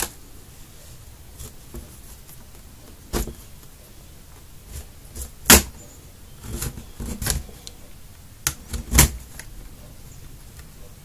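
Sharp plastic clicks and snaps, several of them at irregular intervals, the loudest about halfway and near the end, as a pry tool works the plastic bottom case of a Lenovo Yoga 510 laptop loose from its clips.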